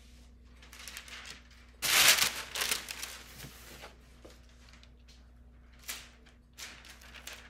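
Clear rhinestone transfer tape being peeled off a freshly heat-pressed shirt and handled: a loud crinkling rustle of plastic about two seconds in, then a few lighter crinkles.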